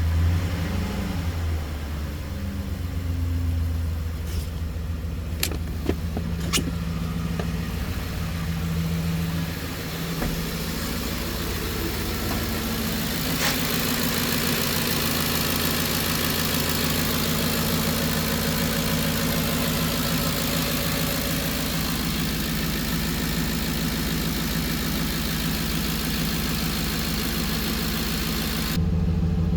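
Ford 5.4L Triton V8 running. Its speed wavers unevenly for the first ten seconds, then settles into a steady idle. A few sharp clicks sound in the first half.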